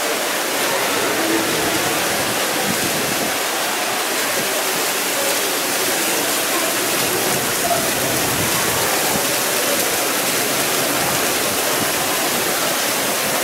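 Ornamental pool fountains splashing: several water jets and a spray fountain falling back into the pool in a steady, unbroken rush.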